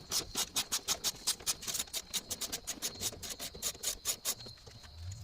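Ratchet with a deep 10 mm socket clicking rapidly and evenly, about six clicks a second, as it runs a tail-light mounting nut off; the clicking stops near the end.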